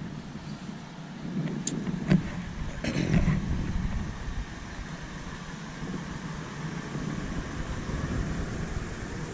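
Toyota 4Runner door shutting with a sharp thump about two seconds in, then another knock about a second later, over a steady low rumble of wind and vehicle noise.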